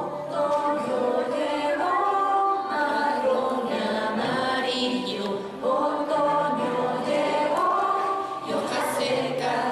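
A group of voices singing a slow children's song together, holding long notes.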